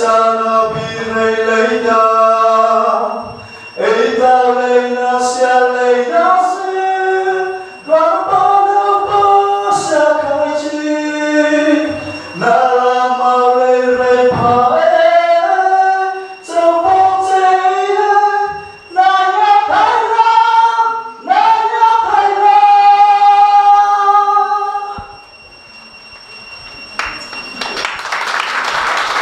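A young man singing a cappella in long phrases with held notes. Near the end the singing stops and the audience begins to applaud.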